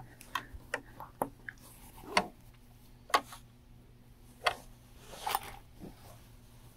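Handling noises as a quilt is pulled out from under a stopped sewing machine's presser foot: a scattering of short, soft rustles and clicks at irregular intervals.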